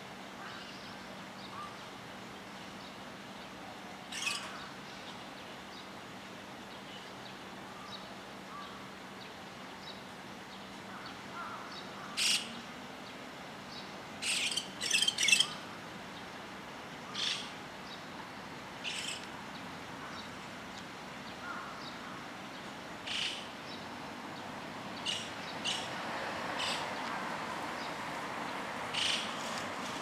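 White-cheeked starlings calling: scattered short, high calls every few seconds, with the loudest single call about twelve seconds in and a quick run of calls a couple of seconds later.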